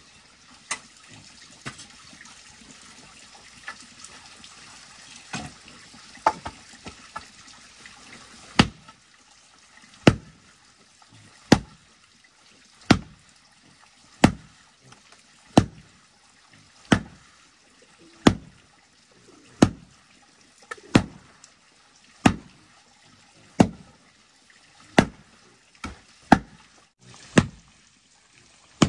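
A hoe scraping through loose, dry soil with small clicks of clods. About eight seconds in, the scraping gives way to steady blows of the tool into the earth, about one every 1.3 seconds, as the soil is broken up and levelled.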